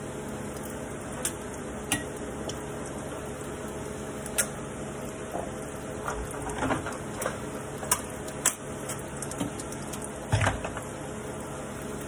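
Chef's knife chopping calabaza squash on a plastic cutting board: scattered, irregular knocks of the blade through the squash onto the board, over a steady low hum.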